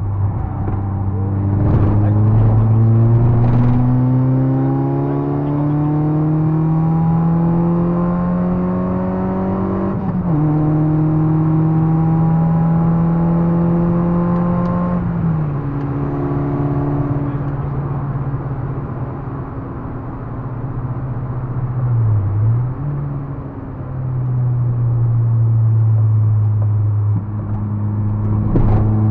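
Citroën Saxo 1.6 VTR's eight-valve four-cylinder petrol engine pulling under acceleration, its pitch climbing steadily for about ten seconds and then dropping with an upshift. A second upshift follows a few seconds later, and the engine then runs at steady revs, with a brief dip and recovery about two-thirds of the way through.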